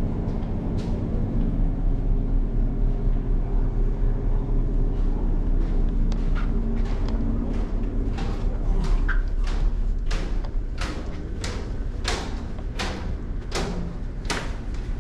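A steady low machinery hum, with a run of sharp taps or knocks starting about six seconds in and coming about twice a second near the end.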